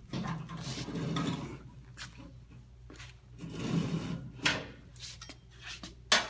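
Baler strapping being pulled through and knotted by hand: two rubbing swishes with light clicks over a steady low machine hum, then a sharp clank near the end.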